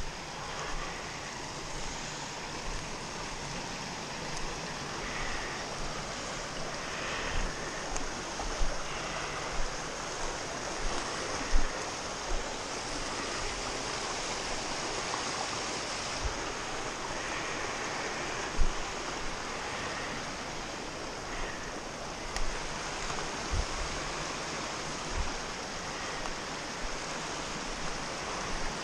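Small cold-water brook rushing steadily over rocks, with occasional short low thumps close to the microphone.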